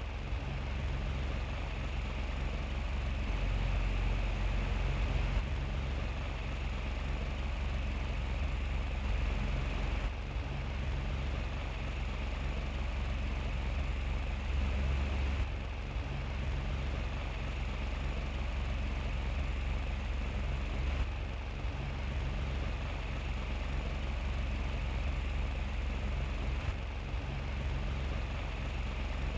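Small electric fan running: a steady motor hum with a rush of air, its tone shifting slightly every few seconds.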